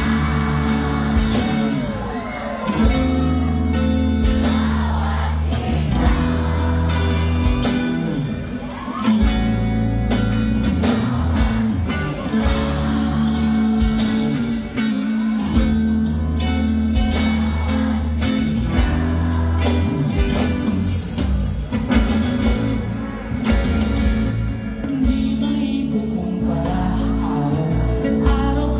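A live band playing a pop-rock song: lead vocals over electric guitars, drums and keyboard, with a strong steady bass line.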